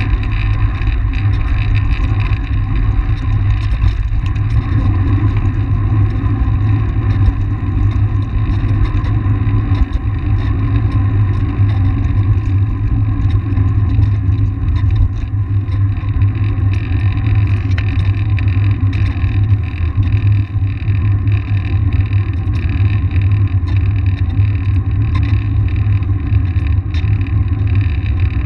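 Wind and riding noise on a bike-mounted action camera's microphone at racing speed: a loud, steady low rumble with faint crackle.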